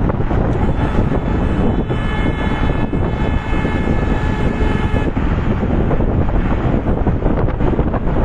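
Wind buffeting the microphone of a camera held out of a moving car, over steady road and engine noise. From about two seconds in, a steady high tone sounds for about three seconds, then cuts off.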